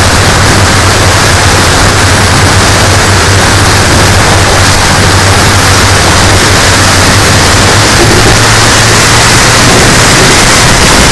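Four engines of a radio-controlled B-17G scale model running steadily, a constant low hum under a loud, even rushing noise.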